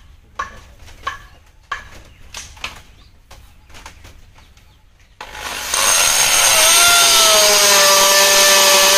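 Scattered light knocks and clicks, then about five seconds in an electric drill starts up with a rising whine and runs loudly and steadily, boring a hole.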